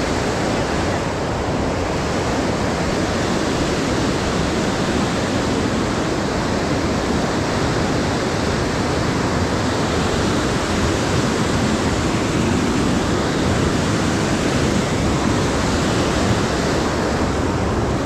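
Whitewater rapids of a fast mountain river rushing over boulders, a steady even rush of water.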